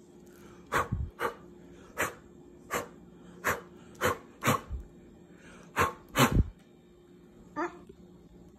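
A dog barking, about ten short barks at irregular intervals, with a softer yelp near the end.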